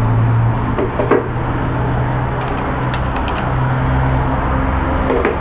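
An engine running steadily with a low hum, with a knock about a second in and a few light clicks.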